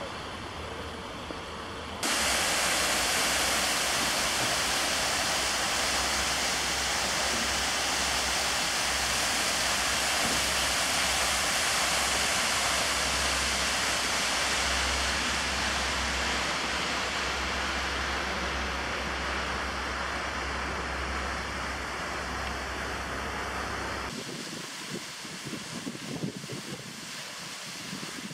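Steady rush of a large pump-fed artificial waterfall. It starts abruptly about two seconds in and cuts off about four seconds before the end, leaving quieter outdoor background with light wind on the microphone.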